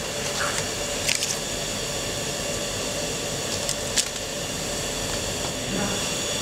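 Steady machine hum of a sewing workshop, with a quick cluster of sharp clicks about a second in and one more at about four seconds as the clear plastic template of an automatic template sewing machine is handled.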